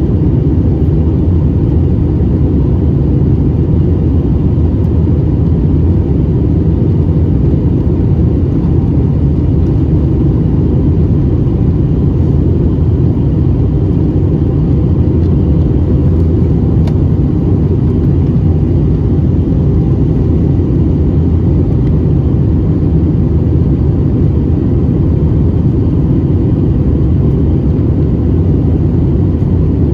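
Steady low rumble of jet engines and airflow inside an Airbus A320's cabin, heard from a window seat by the wing, with a faint steady whine above it and no change throughout.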